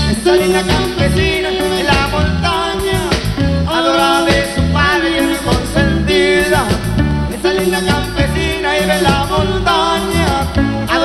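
Norteño band playing an instrumental passage: accordion carrying the melody over electric bass and drums.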